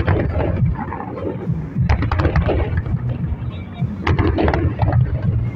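Fireworks display: aerial shells bursting in a continuous run of low booms, mixed with sharp crackles.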